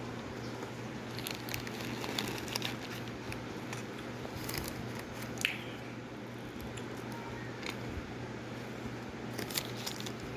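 Biting and chewing oven-baked cornstarch chunks: a string of soft, squeaky crunches and small clicks, the baked starch pressing and squeaking more than it snaps.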